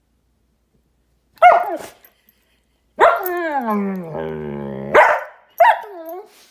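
Giant Schnauzer vocalising over his chew bone: a short bark, then a long complaining call that falls in pitch into a low growl, then two more short barks. This is a dog guarding his bone when someone tries for it.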